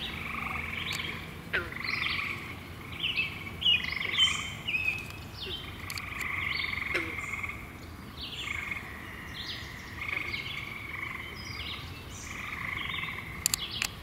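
Frogs calling from a pond in a chorus of repeated, overlapping calls, each under a second long. A couple of sharp clicks come near the end.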